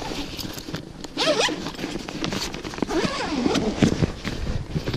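Zipper on a long fabric boat storage bag being pulled open by hand in several strokes, each a scraping rasp that rises and falls in pitch as the slider speeds up and slows.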